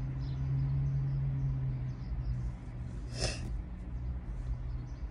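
A person who has been crying sniffs sharply once, about three seconds in, over a steady low hum that drops away about two seconds in.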